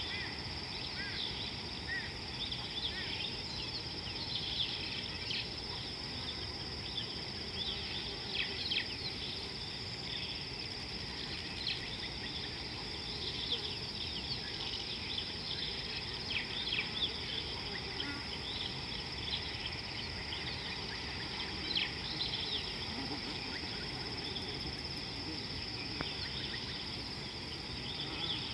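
Bush ambience: a steady high-pitched insect drone, with many short bird chirps scattered through it, over a low background rumble.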